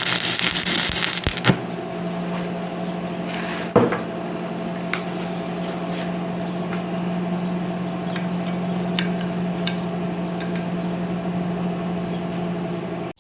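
Welder welding a nut onto a twisted-off bolt, with a harsh arc hiss for about a second and a half, then a steady electrical hum with scattered light ticks that cuts off suddenly at the end.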